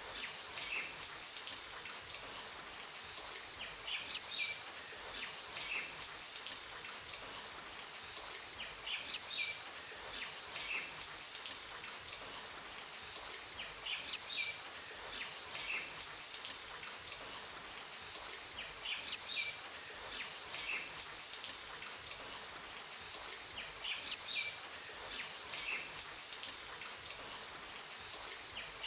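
Steady rain hiss with clusters of short bird chirps that recur in the same pattern about every five seconds, like a looped rain ambience track.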